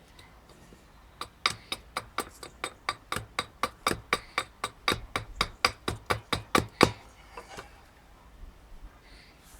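Small hatchet chopping green oak in quick light strokes, about four a second for nearly six seconds, shaping a spoon blank.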